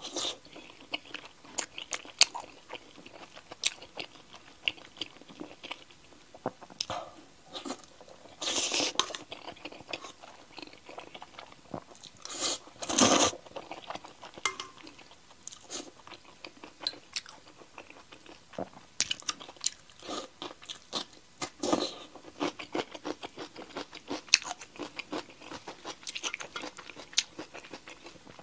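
Close-miked eating: a person chewing and biting into braised meat-stuffed fried gluten puffs and noodles, with many small wet mouth clicks. There are a couple of louder slurps, about nine and thirteen seconds in.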